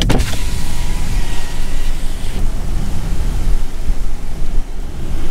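Wind noise buffeting the microphone from a moving car, over a low road rumble.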